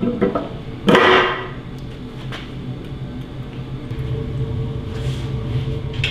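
Metal parts being handled on a Mercedes OM648 engine block on its stand: a short clatter about a second in, then a few light clicks, over a steady low hum.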